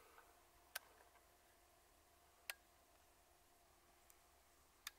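Near silence broken by three faint, sharp clicks spaced about two seconds apart.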